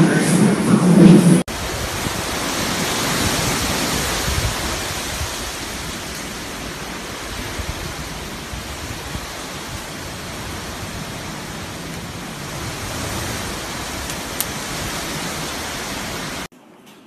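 Storm wind and rain making an even rushing noise with an irregular low rumble, easing slightly and cutting off suddenly near the end. Before it, a loud low rumble stops abruptly about a second and a half in.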